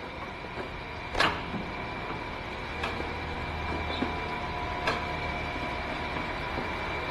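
A few sharp metallic clinks, the loudest a little over a second in and two fainter ones later, over a steady workshop hum with a few fixed whining tones.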